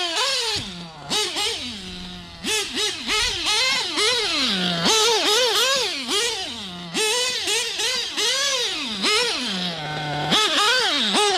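Novarossi .25 nitro engine in a 1/8-scale TLR 8X-T truggy being throttled up and down as it is driven. Its pitch swings up and back one to two times a second, with short spells at a low idle, as the new engine is run in gently.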